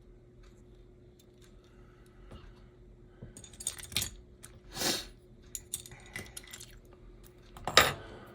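Small metal parts and tools of an HO scale slot car chassis clicking and clinking on a workbench. Two short, loud bursts of breath from a person cut through, about halfway through and again near the end.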